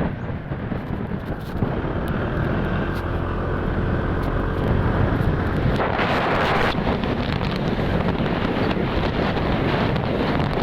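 Wind rushing over the microphone on a moving motorcycle, with the engine's note faintly beneath it; a louder burst of rushing noise about six seconds in.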